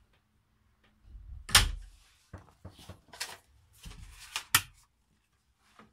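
Knocks and thuds of someone passing through a wooden cabin doorway: a door knocking and footsteps on the wooden floor. The two loudest knocks come about a second and a half in and again about four and a half seconds in.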